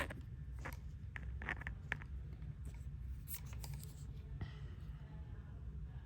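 Hands handling a G-Shock Frogman watch and its strap: a sharp click, then scattered small clicks, rubs and scrapes over a low steady hum.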